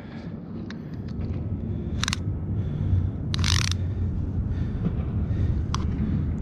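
Handling noises as a striped bass is measured with a tape on a concrete ledge: a few light clicks and scrapes, with a short rustle about two seconds in and a longer half-second one about three and a half seconds in, over a steady low rumble.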